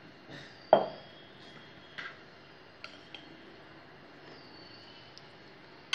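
A kitchen utensil knocking against a mixing bowl and a plastic container while whipped ice cream mixture is scraped across: one sharp knock with a brief ring about a second in, then a few lighter taps.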